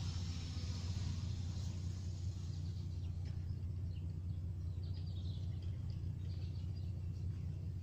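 Steady low outdoor rumble with faint bird chirps in the middle.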